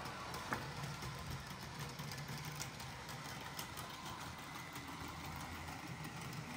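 Roco model of an ÖBB 1670 electric locomotive running along the track with a train of beer wagons: a steady low hum of motor and rolling wheels, with scattered light clicks and one sharper click about half a second in.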